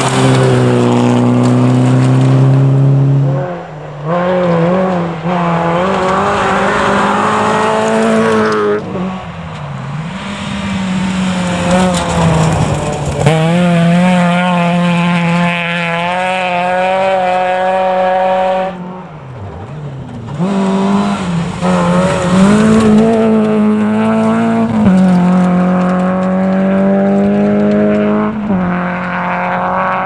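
Rally car engines run hard at high revs on a gravel sprint course, with the pitch stepping through gear changes. Three times the sound drops away briefly as the driver lifts off the throttle, then it picks up again.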